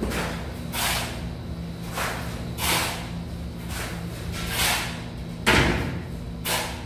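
Spade scraping and scooping through loose sand, one short scrape about every second, the loudest with a thud a little over five seconds in. A steady low hum runs underneath.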